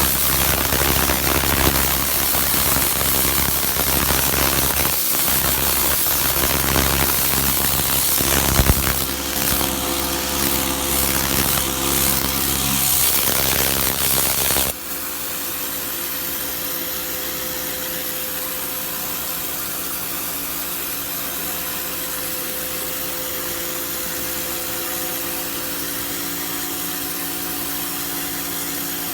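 Karcher K 2 electric pressure washer running, its motor humming steadily under a loud hiss of spraying water. The spray cuts off suddenly about halfway through, leaving a quieter steady hum.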